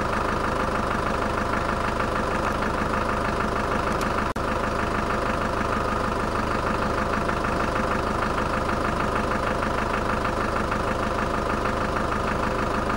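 Vehicle engine idling steadily, with a momentary break in the sound about four seconds in.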